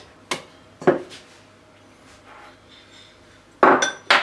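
Two sharp knocks about half a second apart, then a pause, then a louder metallic clatter with ringing near the end: metal kitchenware being handled on a countertop.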